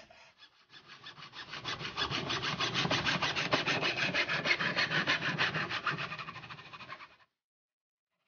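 Fast, even rasping strokes of hand work, like filing or sawing. They grow louder, ease off and stop suddenly near the end.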